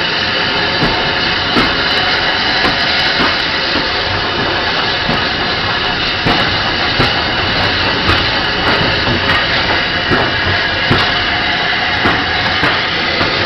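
LBSC A1X Terrier 0-6-0 tank engine and its brake van running slowly along the track, heard from the van coupled to the engine: a steady steam hiss and running noise with many irregular small knocks and rattles.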